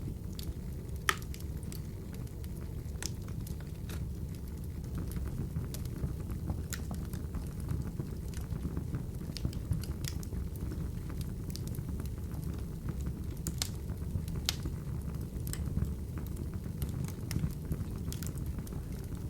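Wood fire burning in an open fireplace: a steady low rumble of flames with irregular sharp crackles and pops from the burning logs.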